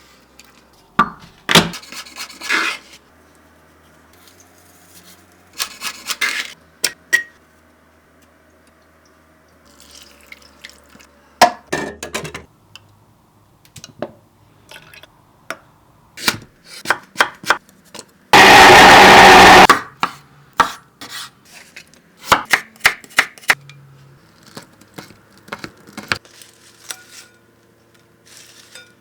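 Kitchen prep: a knife chopping on a cutting board, with dishes and utensils knocking and clinking in scattered short bursts. A little past the middle comes one very loud, steady burst of noise lasting about a second and a half.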